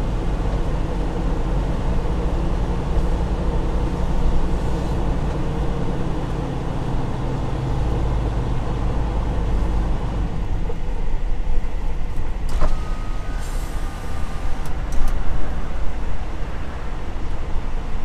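Semi-truck cab interior while driving: steady engine and road drone, which drops and eases off about ten seconds in as the truck slows, followed by a few sharp clicks and knocks near the end.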